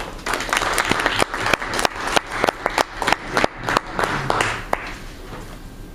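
Audience applauding to welcome a speaker: a run of hand claps that dies away near the end.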